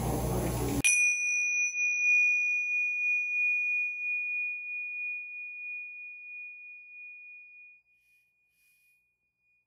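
A steady background hum cuts off under a second in. A single bright, bell-like ding is struck and rings out as one clear high tone, fading slowly over about seven seconds.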